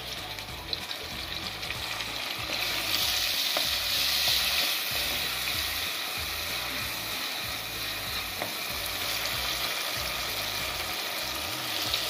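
Chopped tomatoes sizzling in hot oil with shallots and garlic in a clay pot, stirred with a wooden spatula. The sizzle grows louder about three seconds in, with a few faint knocks of the spatula against the pot.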